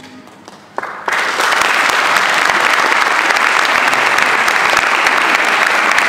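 Audience applauding: a few scattered claps, then full applause breaking out about a second in and holding steady.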